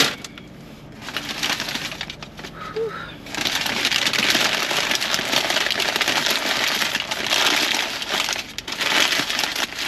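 Foil burrito wrapper and paper takeout bag crinkling and rustling as they are handled and packed away. It is light at first, then loud and continuous from about three seconds in.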